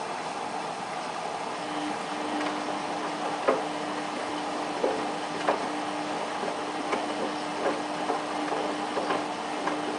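Samsung WF8804RPA front-loading washing machine at the start of its denim wash: a steady rush of running water with a low, even hum that comes in about a second and a half in. Irregular light knocks from the jeans in the tumbling drum run through it.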